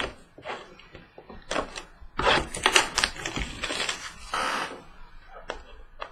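A trading card box being opened and its contents handled: a run of sharp clicks and taps, with a stretch of crinkly rustling from about two seconds in until near the end.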